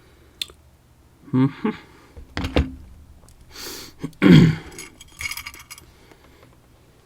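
Small metal padlock parts and tools clinking and knocking as the lock is handled and taken apart, with a louder knock about halfway through and a scatter of light clicks after it.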